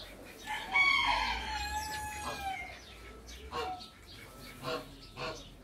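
A rooster crowing once, one long call of about two seconds, followed by a few short chirps and clucks from other birds.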